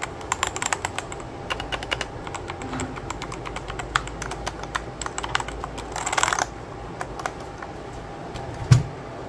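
Aula F3261 mechanical keyboard being typed on as a sound test: irregular key clicks, a quick flurry of keystrokes about six seconds in, and one louder knock near the end.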